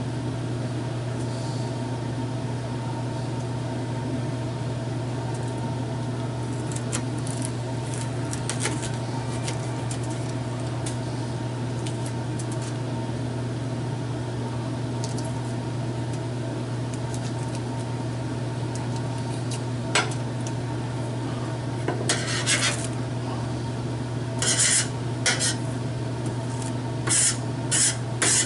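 Kitchen knife cutting a jalapeño by hand: light scattered clicks, then several short, louder scraping sounds in the last few seconds. A steady low machine hum runs underneath.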